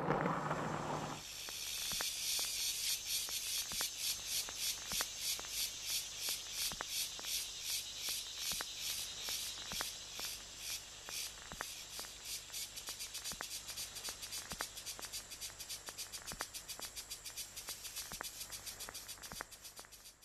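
A high, rhythmic rasping hiss pulsing about four times a second, slowly fading, with faint regular ticks under it.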